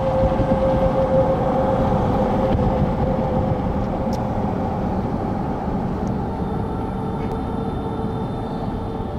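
Road and wind noise of a car driving along a sealed country road, heard from inside the car: a steady rushing that starts abruptly and eases slightly after the first couple of seconds.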